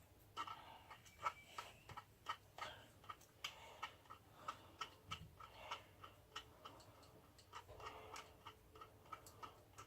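Faint quick clicking of a socket ratchet undoing a bolt, in short runs about two to three a second, with some light rattling of metal parts.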